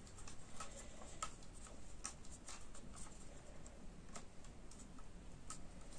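Faint, irregular plastic clicks and ticks from a small ring light's mount as it is screwed onto and adjusted on its tripod.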